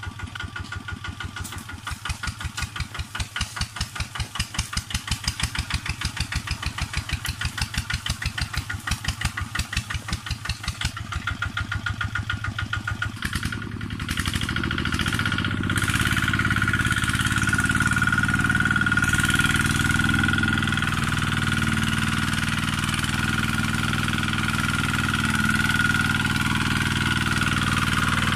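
Two-wheel walking tractor's single-cylinder diesel engine chugging slowly with distinct, even beats. About halfway through it speeds up to a steadier, louder run with a whine on top as the tractor pulls its loaded trailer.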